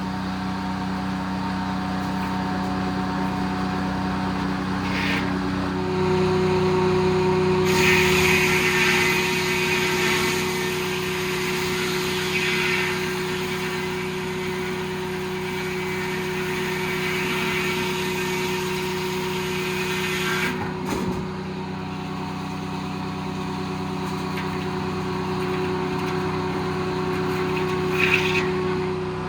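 Detroit diesel engine driving an old circle sawmill, running steadily; its pitch steps up about six seconds in. From about eight to twenty seconds the circular blade saws through a log, a rushing noise over the engine, ending with a knock.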